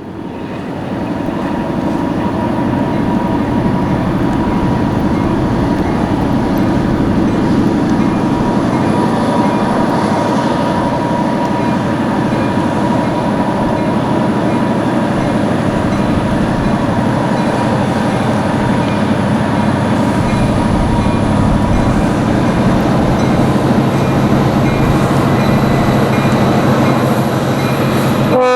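An EMD GP40 diesel locomotive, with its turbocharged 16-cylinder 645 engine, running and moving with its train: a steady, loud mechanical drone with a few held tones, fading in over the first second.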